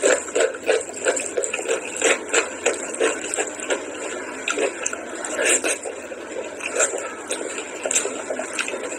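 Close-miked eating of rice and chicken curry by hand: wet chewing and lip smacking mixed with fingers squishing rice in the sauce, as a string of short, irregular sounds.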